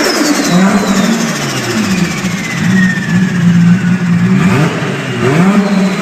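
Nissan Skyline R34 GT-R's twin-turbo straight-six running and revving, its note falling and climbing several times. A thin high whistle falls slowly in pitch over the first few seconds.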